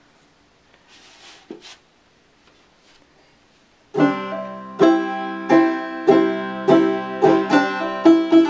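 Deep-toned banjo with a large deer-skin head played clawhammer style. After a few seconds of faint handling noises, the picking starts about four seconds in on a steady, regular beat of plucked notes.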